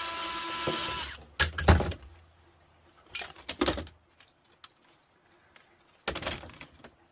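Power drill running with a steady whine, stopping about a second in, followed by three short clusters of knocks and clatter as the fan's parts are handled.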